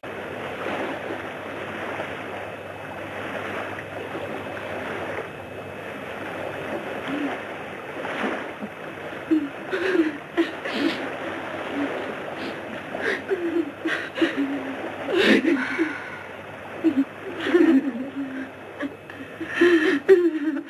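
Sea water washing and surging steadily. From about halfway through come short cries and sobbing from people in the water, with a few sharp splashes or knocks.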